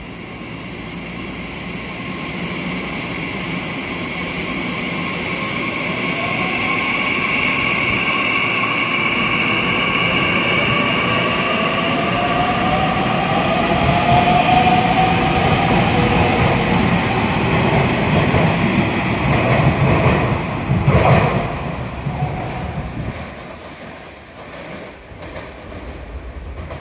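Nishitetsu electric train running at a station platform: wheels on the rails and a whining traction motor whose pitch glides, with a steady high squeal above. It grows louder to a peak about three quarters of the way through, with a sharp clack there, then fades away.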